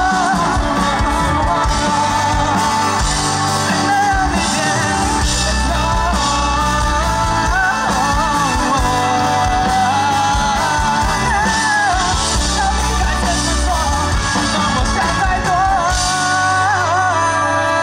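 Live rock band playing: a male lead singer sings into a microphone over electric guitar, electric bass, drums and keyboard, heard through the PA.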